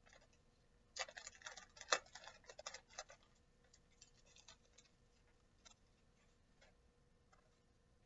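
Crinkling and crackling of a plastic IV tubing package being opened and the secondary tubing pulled out, busiest between about one and three seconds in, then a few faint scattered clicks as the tubing is handled.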